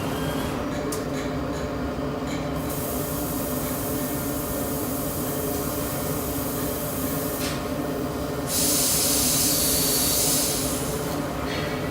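Industrial laser cutting machine running: a steady hum of machinery with a high hiss that switches on for a few seconds at a time, loudest about nine seconds in.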